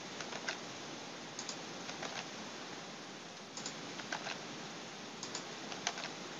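Computer keyboard keys pressed in scattered single taps and quick pairs, over a steady faint hiss, while a spreadsheet formula is edited to add dollar-sign absolute references.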